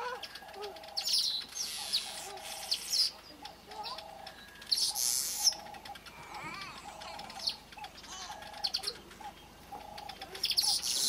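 Village weavers chattering in their buzzy, sizzling song in three bursts: about a second in, near the middle and near the end. A low call repeats about once a second underneath.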